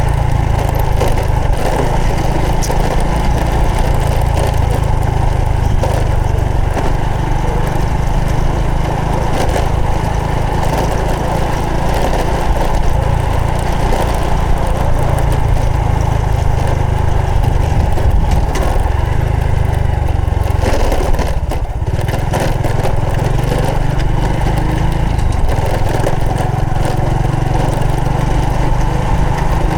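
Honda Supra X 125 FI's single-cylinder four-stroke engine running steadily under way, with road and wind noise; the engine sound dips briefly about two-thirds of the way through.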